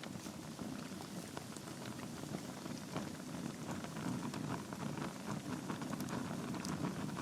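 Log fire in a fireplace crackling steadily: a dense stream of small pops over the low rush of the flames, with a few sharper snaps.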